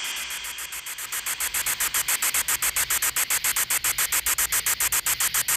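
Spirit-box static from the GhostTube ghost-box app: a hiss chopped into rapid, even pulses several times a second, like a radio sweeping through stations. It dips at first and swells back up about a second in.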